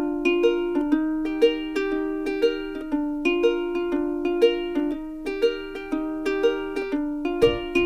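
Background music: a plucked string melody in the manner of a ukulele, notes in a steady rhythm of about two per second, with a low thumping beat coming in near the end.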